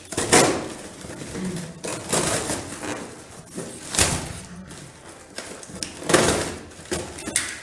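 Cardboard box being slit with a utility knife and torn open by hand: about five short, scratchy ripping sounds spread a second or two apart, with quieter scraping of cardboard between them.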